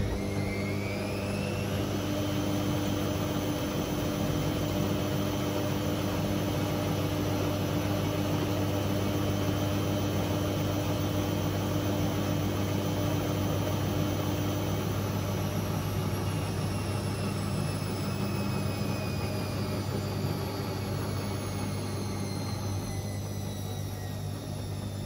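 Hotpoint WMA64 washing machine's new drive motor turning the drum in a wash tumble. Its whine rises over the first two seconds, holds steady, then slowly falls in pitch through the second half, over a low hum and the noise of laundry and water tumbling in the drum.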